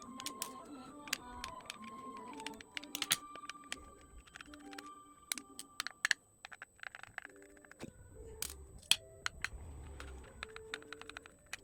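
Irregular small clicks and taps of plastic and metal parts being handled, over soft background music.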